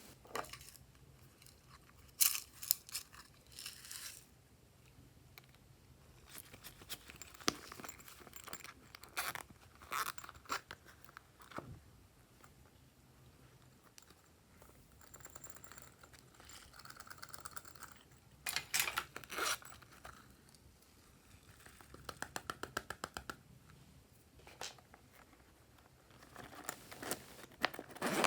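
Glossy slime being worked by hand: sticky squelches and clusters of sharp clicks and pops as it is pressed and pulled, including a quick even run of clicks about three quarters of the way in.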